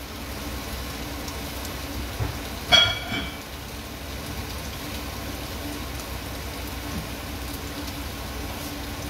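Prawns frying in butter with garlic and onion in a frying pan: a steady sizzle after they went in, on a pan that is not quite hot enough. There is a brief louder tone about three seconds in.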